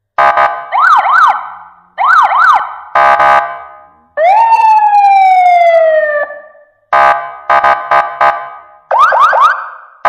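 Electronic siren sounds from a toy police motorcycle's sound chip. Short bursts of quick up-and-down siren sweeps start and cut off abruptly, with one long falling wail about four seconds in and rising sweeps near the end.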